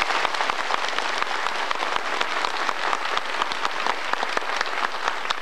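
Large seated audience applauding, many hands clapping together in a dense, even patter that eases slightly toward the end.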